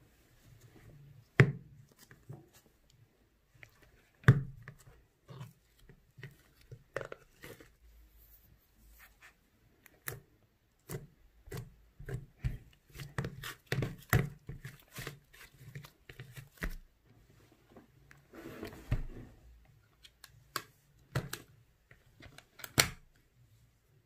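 Plastic slime tub handled and opened near the start, then soft white slime pressed and kneaded by hand, giving a run of sticky pops and clicks. The slime is slightly melted and tacky.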